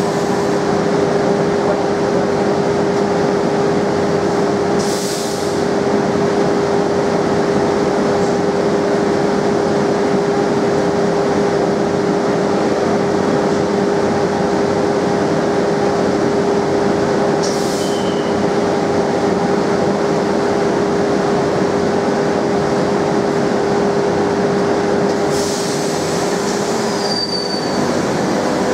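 Madrid Metro series 2000A train standing at the platform, its on-board equipment giving a steady hum with a strong held tone. Three short hisses break in: about five seconds in, in the middle, and near the end.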